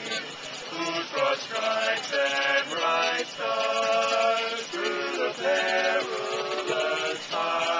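Four men singing a cappella in barbershop-style harmony, moving through a series of held chords.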